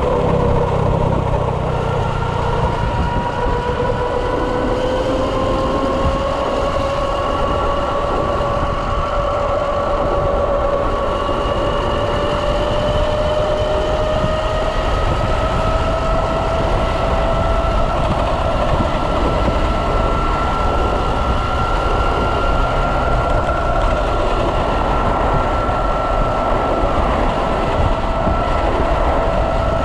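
The electric drive of a Kawasaki KLX converted to electric power whines steadily while riding. Its pitch climbs slowly as the bike gathers speed, over a steady rush of wind and road noise.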